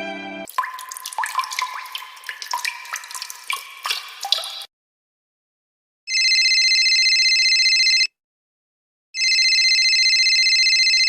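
Water drops plinking and dripping in a quick, irregular run of pitched drips for about four seconds. Then, after a short silence, a telephone rings twice with a fast warbling trill, each ring about two seconds long and a second apart.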